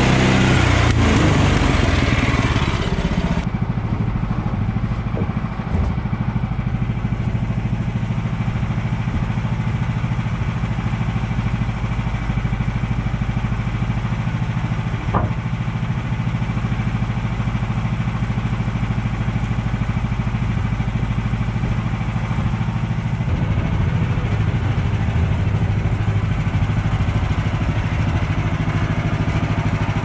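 Portable band sawmill's engine and blade: the blade finishes sawing through the log in the first three seconds as the engine's pitch drops. After that the engine runs on steadily at a lower speed, with one short knock about halfway.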